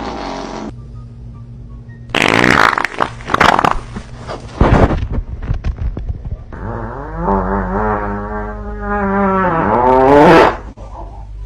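Fart sounds: a short one at the start, several short noisy blasts between about two and five seconds in, then one long, pitched, wavering fart lasting about four seconds, loudest just before it ends.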